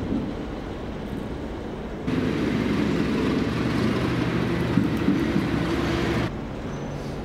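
Steady mechanical running noise: a low hum throughout, joined about two seconds in by a louder hiss with a wavering drone, which cuts off abruptly near the end.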